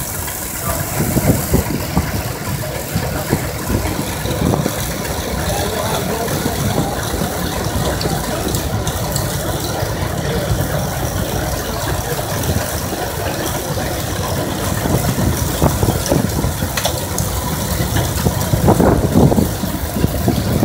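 Vintage threshing machine running at work, a steady, dense mechanical rattle and clatter from its moving parts and straw blower as sheaves are fed in.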